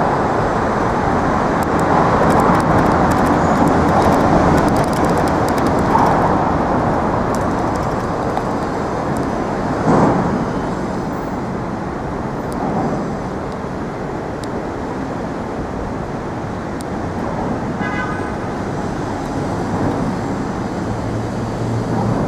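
Steady road traffic noise from the bridge's roadway, loudest in the first few seconds and easing later, with a brief louder swell about ten seconds in.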